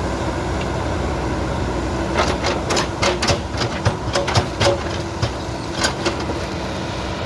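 Diesel engine of a JCB backhoe loader running steadily under work. About two seconds in, a run of sharp metallic clanks and knocks starts and goes on for roughly four seconds before it settles back to the engine alone.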